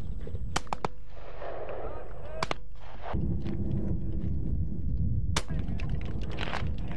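Shotguns firing at driven pheasants: a quick run of three shots under a second in, a pair about two and a half seconds in, and a single shot about five and a half seconds in. Steady wind rumbles on the microphone throughout.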